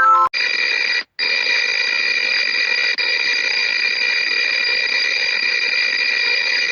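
A steady electronic alarm tone held at one unchanging pitch, with a short break about a second in, cutting off just before the end.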